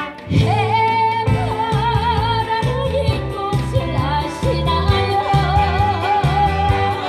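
A woman singing a Korean popular song into a microphone over amplified instrumental accompaniment. She sings long held notes with vibrato over a steady, repeating bass line, after a brief break just after the start.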